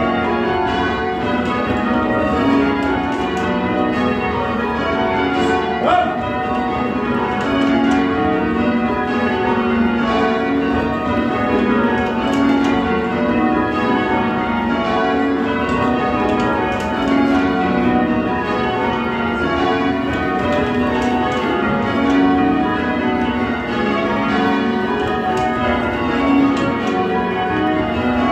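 Sheffield Cathedral's Whitechapel-cast peal being change rung: a continuous, even stream of bell strikes, one bell after another, each ringing on under the next. A brief rising squeak cuts through about six seconds in.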